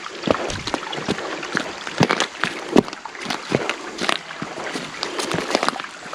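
Irregular footsteps in a slate creek bed: stones clacking and scraping underfoot, with some splashing, about two steps a second.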